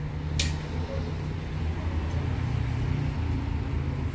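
Low, steady engine hum of street traffic, with one sharp click about half a second in.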